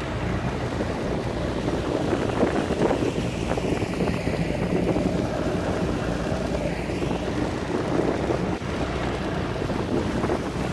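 Small motorboat under way, its engine running at a steady drone, with wind buffeting the microphone and water rushing past the hull.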